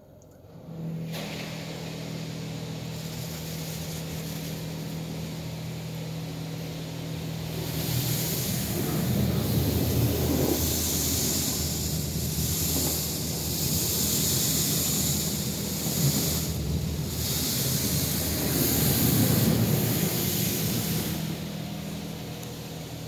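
PDQ LaserWash 360 Plus touchless car wash spraying high-pressure water over the car, heard from inside the cabin, over a steady machine hum. It starts suddenly about a second in, and from about eight seconds in the hissing spray gets louder and comes in waves as the jets sweep across the car.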